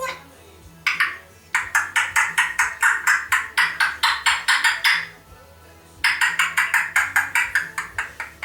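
African grey parrot making quick repeated clicking chirps, about six a second, in two runs with a short pause between.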